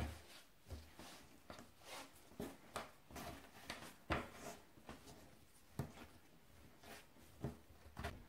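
Hands kneading soft bread dough on a wooden cutting board: irregular soft thumps as the dough is pressed down, lifted and folded, about one to two a second, the loudest about four seconds in.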